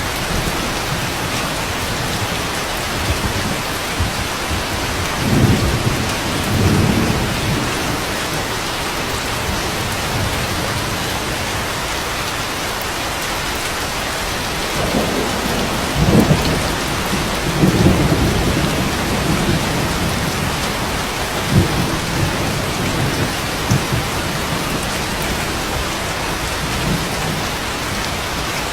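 Steady rain with thunder rumbling low several times. The biggest rolls come about a fifth of the way in and again just past the middle, with shorter rumbles after.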